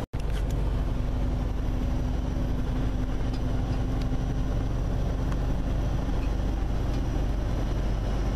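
Steady engine and road noise heard inside a semi-truck's cab while driving on the highway, with a low steady drone that fades about six and a half seconds in. The sound cuts out for an instant right at the start.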